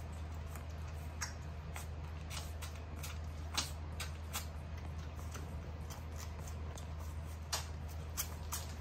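Shiba Inu puppies suckling at their mother's teats: irregular wet smacking clicks over a steady low hum.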